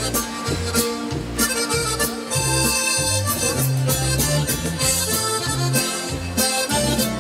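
Dance music with a steady beat and an accordion carrying the melody.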